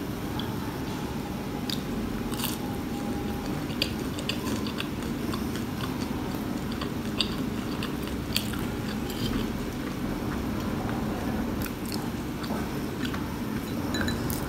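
Close-miked chewing of crispy fried onion pakoras, with scattered sharp crunches and mouth clicks over a steady low hum.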